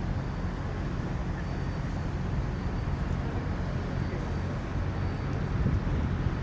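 Steady low rumble of outdoor city ambience, mainly road traffic.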